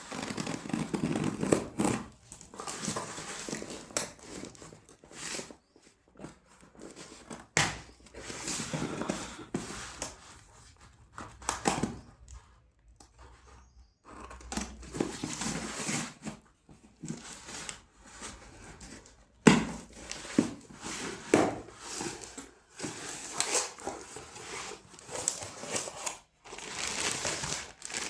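Packaging crinkling and rustling as it is handled and opened, in irregular bursts with a few sharp clicks.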